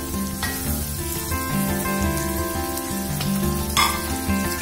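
Instrumental background music over the faint sizzle of shallots, green chillies and curry leaves sautéing in oil in an aluminium kadai. A brief clatter comes near the end.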